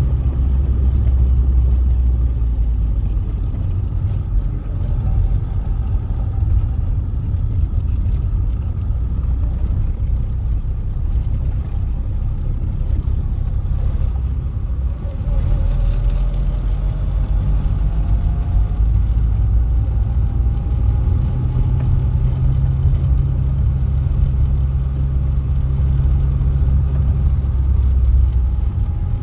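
Car engine and road noise heard inside the cabin of a moving car: a steady low rumble. About halfway through, a faint whine rises slowly in pitch.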